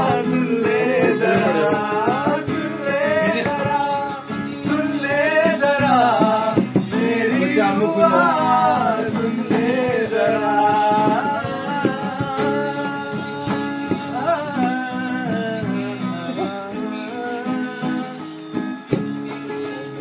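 Two male voices singing a melody with an acoustic guitar strummed as accompaniment.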